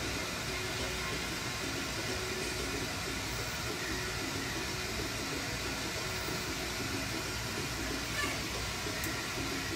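Steady rushing roar of a lampworking glass torch flame, held even throughout.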